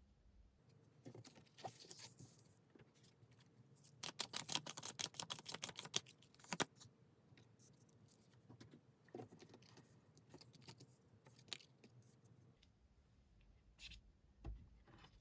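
Tarot cards being handled, faint: scattered soft taps and rustles, with a quick flurry of card clicks about four seconds in that lasts a couple of seconds.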